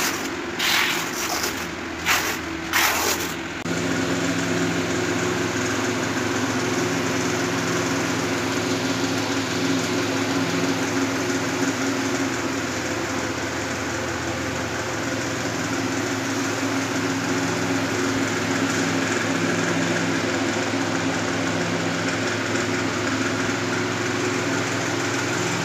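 A few strokes of a notched trowel scraping through tile adhesive, then a steady mechanical drone from a running motor, with a low hum that pulses gently.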